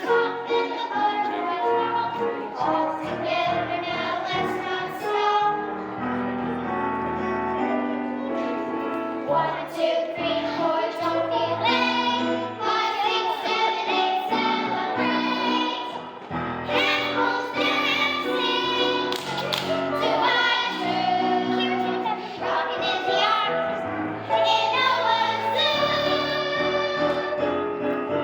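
Music of a children's musical number: an accompaniment track, with children's voices singing along.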